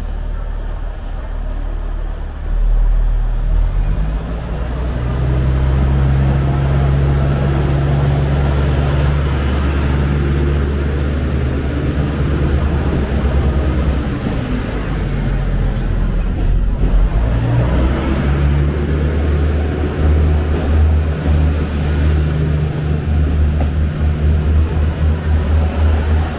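JR East Kiya E195 rail-transport diesel train pulling past at low speed: a steady low diesel engine drone with wheel and rail noise, growing louder about two and a half seconds in.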